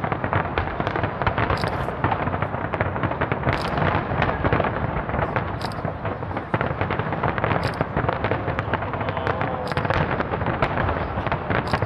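Fireworks display in a dense barrage: many bangs and crackles overlapping in rapid succession, without a pause.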